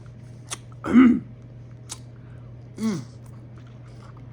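Mouth-smacking while eating shrimp, with sharp wet lip smacks, and a short throaty sound about a second in, like throat clearing after spicy food, plus a softer one near the end.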